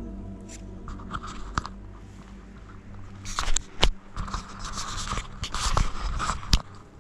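Footsteps scuffing and scraping across a debris-covered floor, mixed with handling noise. Several sharp knocks come between about three and six and a half seconds in.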